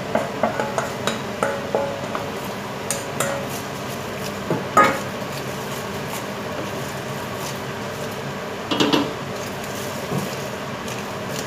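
Stainless steel bowl clanking on the rim of a stainless steel pot as shredded cabbage is tipped in, then a wooden spatula knocking and scraping in the pot while the cabbage is stirred. A quick run of knocks at the start, a louder knock about five seconds in, and another cluster near the end.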